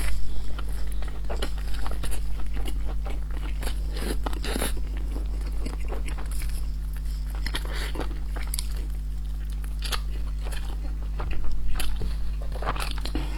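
Close-miked eating: biting and chewing of braised pork belly in a soft steamed bun, a run of short wet clicks and crunches, over a steady low electrical hum.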